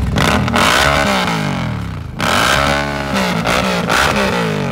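Indian V-twin cruiser motorcycle revved while standing, the engine note climbing and falling back through several throttle blips, with a sharp blip about two seconds in.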